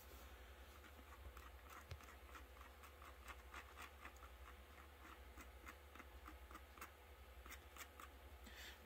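Near silence, with faint scattered clicks and scratches of a plastic super glue bottle and a small plastic chair part being handled.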